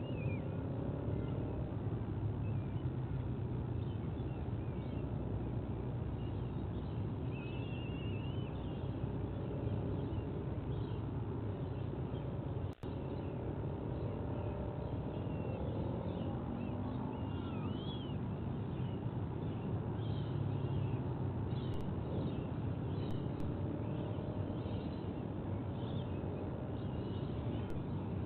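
Outdoor nest-camera ambience: a steady low rumble with many short, high bird chirps and twitters scattered through it. There is a brief dropout about halfway through.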